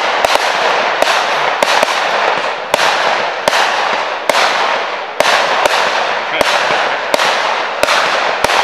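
Consumer fireworks going off: a rapid, irregular string of sharp bangs, about two a second, over a continuous hissing crackle of bursting stars.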